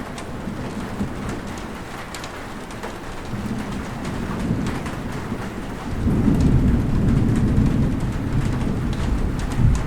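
Steady rain falling, with scattered drops, and thunder rumbling low. The rumble swells about halfway through and grows louder and deeper from about six seconds in.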